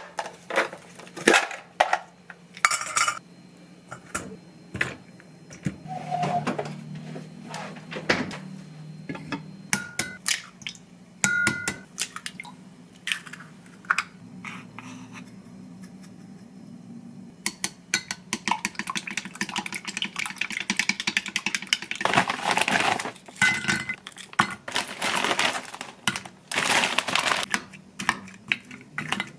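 Scattered knocks and clinks of kitchen handling: dishes, a colander and eggs being cracked. From about the middle on, a fast, continuous clicking as wooden chopsticks beat eggs in a glass measuring jug.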